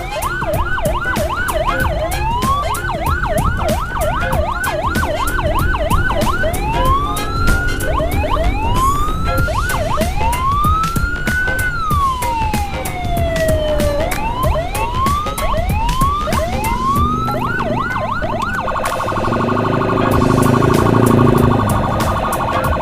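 Electronic vehicle siren cycling through its modes: fast repeated rising yelps, then slower wails including one long rise and fall, then fast yelps again. About three-quarters of the way through it switches to a steady pulsing tone over a louder low blare.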